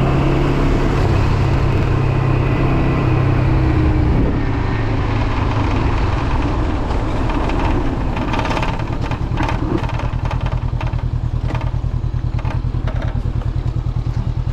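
Honda CB500X's parallel-twin engine running, easing off about four seconds in and settling to an even, pulsing idle. Over it a loose windshield rattles and clicks because it is missing a screw.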